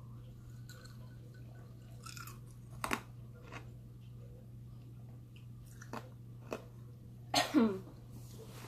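Mouth sounds of someone eating a hot Thai bird pepper: chewing with scattered small wet clicks and smacks, and a short vocal sound falling in pitch near the end, over a steady low hum.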